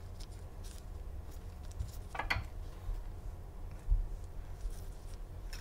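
Quiet food-preparation handling sounds: faint light ticks and taps over a low hum, with a brief squeak a little over two seconds in and a soft low thump near four seconds.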